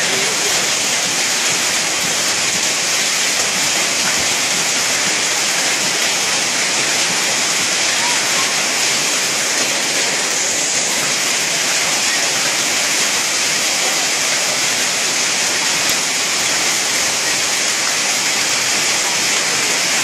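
Hailstorm with heavy rain, hail and rain pelting down in a loud, steady hiss that does not let up.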